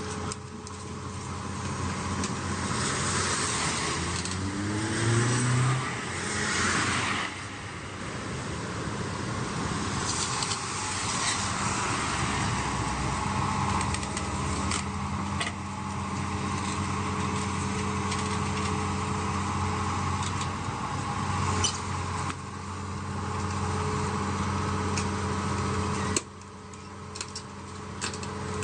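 An engine running steadily, with a brief rise in pitch about five seconds in and a sudden drop in level near the end.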